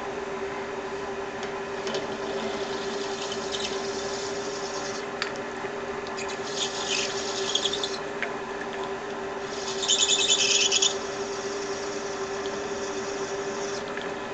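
Metal lathe running with a steady hum while a tool cuts brass bar stock for a bushing, with a scraping cutting noise that comes louder twice, about halfway through and again about two-thirds of the way through.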